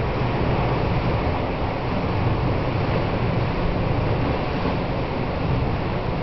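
Steady rush of wind and sea with a low, even hum underneath, without a break.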